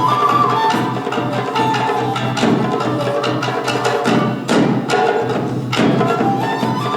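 Live music from a Japanese taiko drum show: a melody carried over percussion, with sharp wooden clicks and drum strikes.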